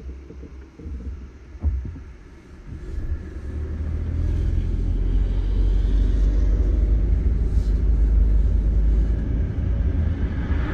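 Low road and engine rumble heard inside a moving car, growing louder about three seconds in and then holding steady. One short thump comes before the rise.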